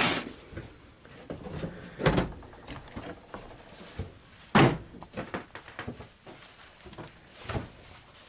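A few separate knocks and clunks of objects being handled and shifted among clutter, the loudest about four and a half seconds in.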